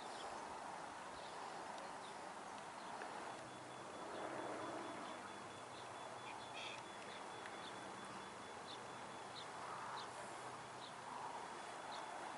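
Quiet outdoor ambience with scattered short, high bird chirps. A thin, faint, steady high tone and a faint low hum come in a few seconds in and carry on to near the end.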